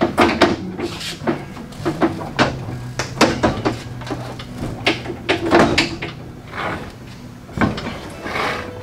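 Irregular metal clanks and knocks as the band wheels of a Norwood LumberPro HD36 portable sawmill are handled, fitted onto their shafts and turned by hand.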